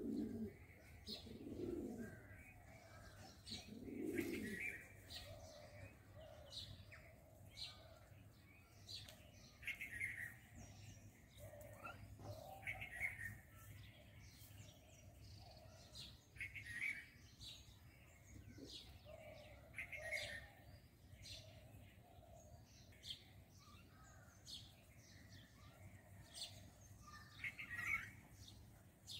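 Faint birdsong: short, high chirps every second or so, with a few low pigeon coos in the first few seconds.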